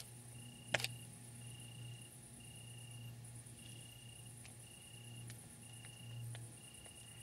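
Crickets chirping: a faint, rhythmic chirp about once a second over a high, continuous insect trill and a steady low hum, with one sharp click about a second in.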